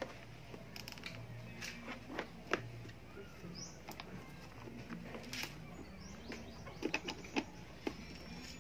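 Scattered small clicks and rattles of plastic wiring connectors being handled and pushed together in a Yamaha Mio scooter's handlebar wiring harness, with a sharp click about two and a half seconds in and a quick cluster of clicks near the end.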